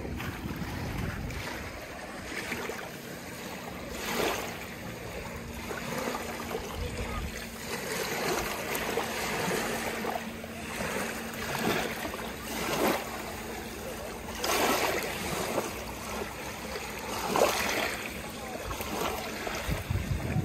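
Small waves washing against a reservoir shore, in uneven swells every second or two. A faint steady hum runs under them for most of the first two-thirds.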